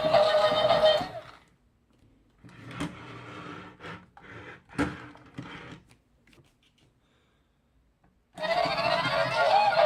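Music that cuts off about a second in. Then a small battery toy motor whirs for a few seconds, with two sharp knocks, and the music starts again near the end.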